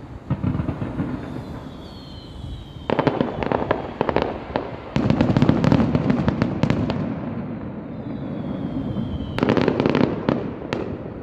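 Aerial fireworks shells bursting, each burst followed by dense crackling. A thin whistle falling in pitch leads into a burst about three seconds in, the loudest and longest stretch of bursts and crackle comes from about five to seven seconds, and a second falling whistle leads into another burst near the end.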